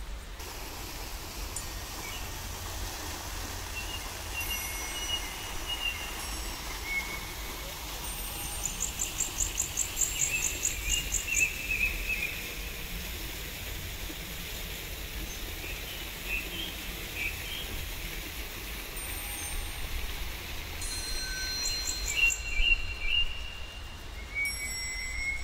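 Songbirds chirping and singing over a steady outdoor hiss, with a fast, high, repeated trill in the middle.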